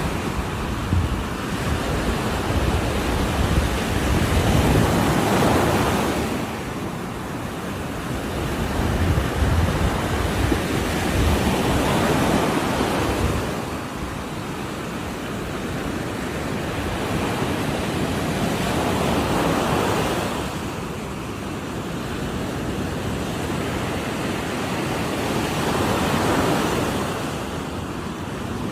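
Ocean surf: waves breaking on the shore in a continuous wash that swells and eases every several seconds.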